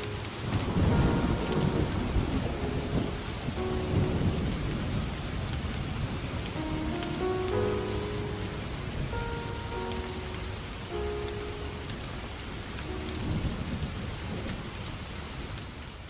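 Steady heavy rain with deep rolls of thunder, a couple near the start and one near the end, under slow, sparse piano notes.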